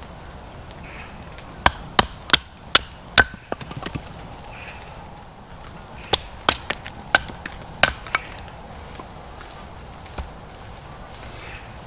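Firewood being chopped: two runs of five or six sharp blows on wood a few seconds apart, with a single blow near the end.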